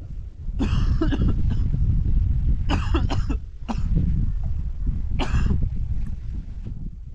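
A person coughing hard several times, in short bursts, over a heavy low rumble.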